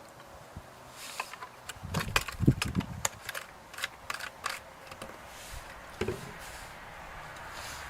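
A quick run of clicks, taps and knocks from plastic and metal parts being handled, starting about a second in and thinning out after about five seconds, with a last knock near six seconds. These are handling noises as the chainsaw's fuel is topped up and its filler cap is dealt with.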